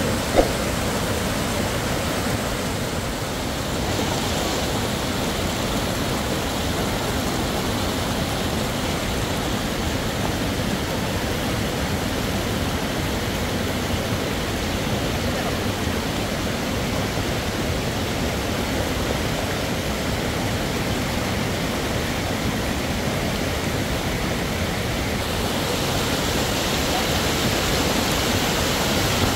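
River water rushing steadily over a rocky cascade, a constant hiss of moving water, with one short click about half a second in.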